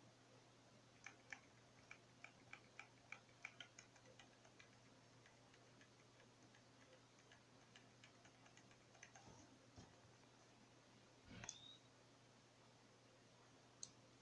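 Near silence with a low steady hum and a run of faint, irregular clicks and crackles in the first few seconds.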